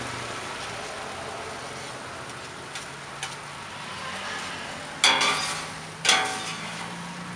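Food sizzling on a flat-top griddle while metal spatulas scrape and lift grilled beef and peppers, with two loud knocks of spatula on metal, one about five seconds in and another about a second later, each ringing briefly.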